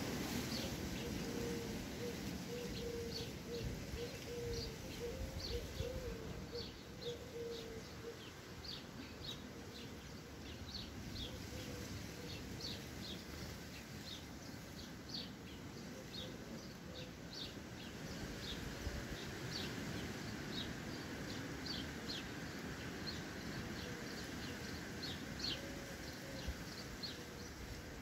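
Sparrows chirping: short high chirps repeating irregularly, over a steady low background rumble.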